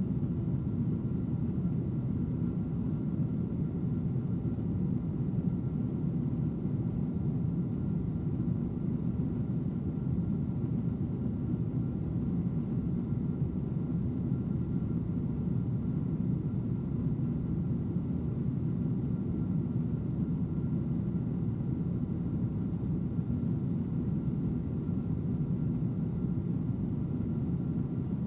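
Steady low rumble of an aircraft cabin in flight: engine and airflow noise heard from inside the plane, unchanging, with a faint steady tone above it.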